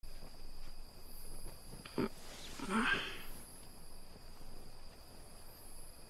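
Quiet night-time ambience with a faint steady high tone. About two seconds in there is a soft knock, then a brief low cry that rises and falls in pitch.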